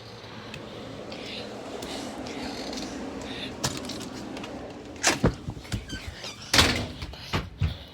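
A faint steady background hum, then a few sharp knocks and thuds: a pair about five seconds in, a louder one about six and a half seconds in, and smaller clicks near the end.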